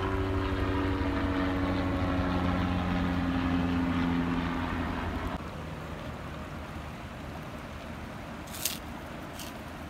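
Helicopter flying over: a steady engine-and-rotor drone with a low beating pulse, its pitch sinking slightly, dropping away about five seconds in. One short sharp click near the end.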